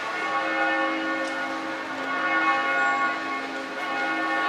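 Church bells ringing, several bells sounding together in long, overlapping tones.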